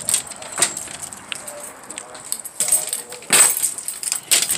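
Clattering and rustling as a hand-held phone is carried through a doorway, a run of sharp clicks with a louder scrape about three and a half seconds in and another just before the end.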